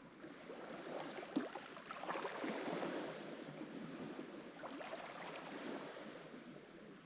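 Lake Michigan waves breaking and washing up the shore. One surge swells about half a second in, is loudest around two to three seconds in, then eases back, with a sharp splash about a second and a half in.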